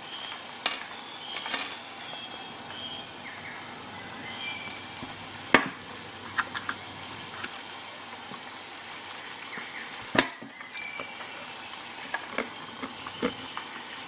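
Hazelnut shells cracking and snapping in multi-tool pliers, with the broken shell pieces clicking and tapping on a plastic tray. There are sharp cracks about half a second in, at about five and a half seconds and at about ten seconds, the last the loudest, with lighter ticks and faint high squeaks between them.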